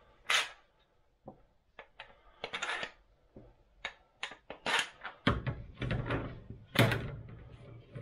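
Plastic boat bow rollers being slid onto an M10 threaded bar, making a string of short, irregular clicks and clacks as they knock against the threads and each other. Between about five and seven and a half seconds in, a low rumble joins the clacking.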